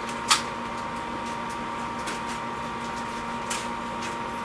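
A steady mechanical hum with a few light clicks and rustles of rack parts and packaging being handled, the sharpest click just after the start.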